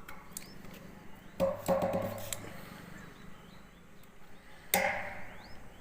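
A few sharp knocks: one about a second and a half in, a short clatter just after it, and a louder single knock near the end. A bird chirps faintly in rising notes now and then.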